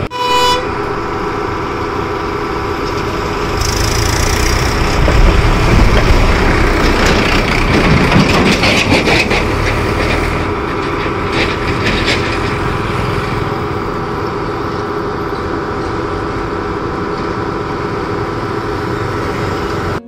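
Steady machine hum made of several fixed tones, from the power station's machinery, over water rushing out beneath the building. The noise swells for several seconds about four seconds in, then settles back.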